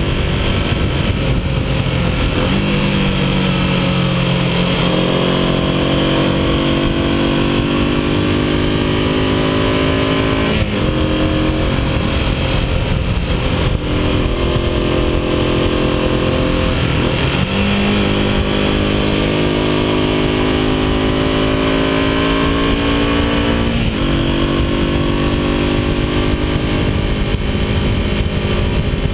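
Vintage motorcycle engine running under way on the road, its pitch rising and falling with the throttle, with three short gear changes spread through the ride. A steady rush of wind noise lies over it.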